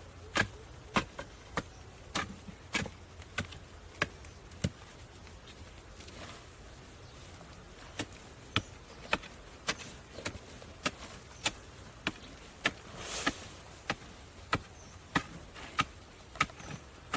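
A blade chopping bamboo in sharp, regular strokes, somewhat under two a second. The strokes pause for about three seconds around the middle and then resume. A short rustle comes about two-thirds of the way through.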